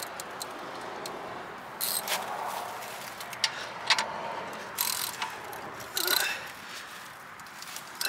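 Hand ratchet wrench clicking and metal tools clinking while working a suspension nut on a car, in several short spells.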